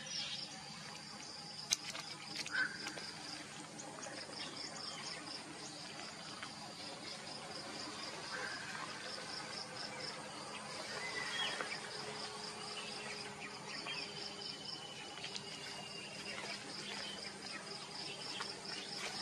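Steady high-pitched pulsing insect chorus, with a few short bird calls and one sharp click about two seconds in.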